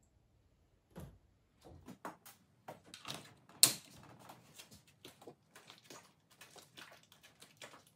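Plastic gallon jug being capped and shaken to mix windshield washer fluid: scattered clicks and knocks of plastic, the loudest a sharp click about three and a half seconds in.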